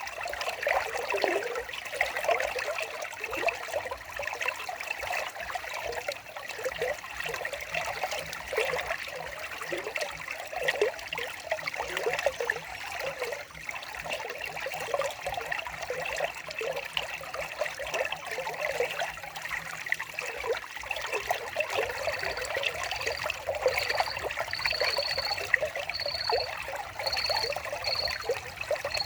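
Water trickling and babbling steadily over stones, like a small stream. From about two-thirds of the way through, a series of short high-pitched notes repeats above it.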